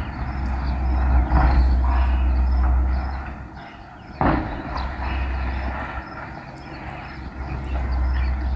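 A heavy vehicle running with a deep, steady rumble that fades away twice. A sudden loud knock comes about four seconds in.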